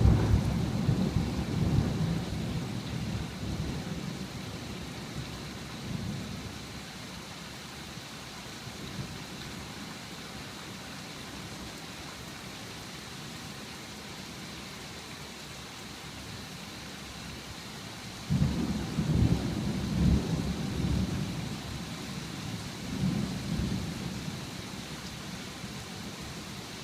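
Steady rain with rolling thunder. A low rumble near the start dies away over a few seconds, then a fresh rumble comes in with two rolls later on.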